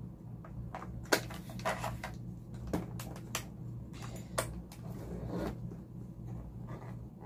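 Scattered sharp clicks and knocks of a vintage camera's plastic body and battery compartment being handled, just loaded with AA batteries, over a steady low hum.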